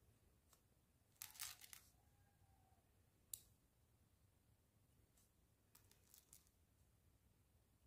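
Faint clicks and scrapes of mini plastic building bricks being handled and pressed together: a quick cluster of clicks about a second in, a sharp single click a couple of seconds later, and a few more clicks near the end.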